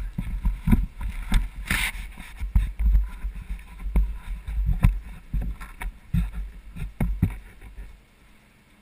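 Mountain bike clattering and rattling as it rolls fast over a concrete floor, with a low rumble from the helmet camera being shaken, and a sharper clatter about two seconds in. The noise falls away suddenly about eight seconds in.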